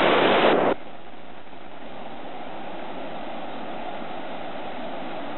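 Steady running noise of a small boat under way on a lake, with water and motor sound. A louder rushing noise cuts off abruptly under a second in.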